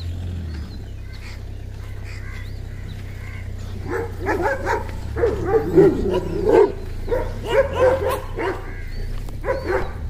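Dogs barking and yelping in a rapid, overlapping series that starts about four seconds in.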